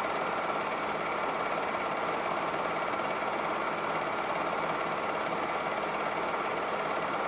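Super 8 film projector running steadily, its mechanism clattering in a fast, even rhythm with a low hum underneath.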